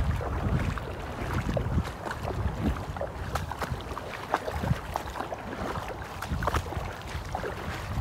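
Feet wading through shallow floodwater, sloshing and splashing irregularly with each step, with wind rumbling on the microphone.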